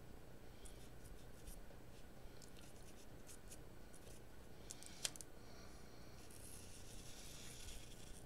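Faint scratching and light ticking of an oil-based paint marker tip drawing lines on wax paper, with one sharp click about five seconds in and a longer scratchy stroke near the end.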